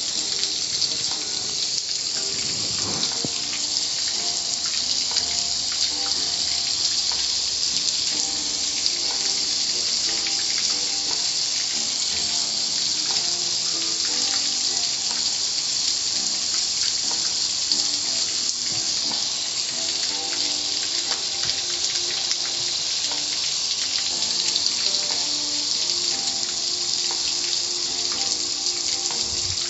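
Steady rush of spraying water at a car wash, an even hiss that does not let up.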